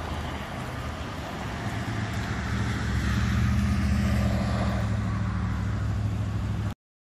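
A motor vehicle's engine running over outdoor background noise, its low hum growing louder a couple of seconds in, then cutting off abruptly near the end.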